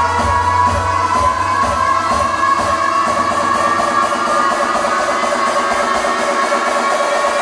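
Music played loud through a car audio system: front speakers run off the head unit plus a small 100 W RMS Alpine subwoofer driven by a Hertz HP2 amplifier. Heavy bass is present at first and drops out about two and a half seconds in, leaving the mids and highs.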